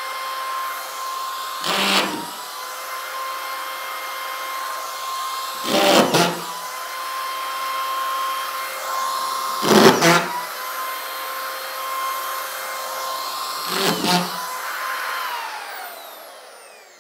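Corded drywall screw gun running steadily with its trigger locked on, its motor whining at a constant pitch. Four times, about every four seconds, a screw is pressed into the sheetrock and driven home with a short loud burst as the clutch engages and then kicks out, the sign that the screw is sunk to depth. Near the end the motor is switched off and spins down with a falling whine.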